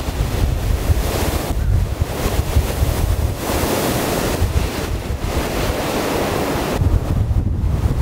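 Strong gusting wind rushing through bare winter forest trees, with heavy wind buffeting on the microphone. A stronger gust swells about halfway through and eases off again near the end.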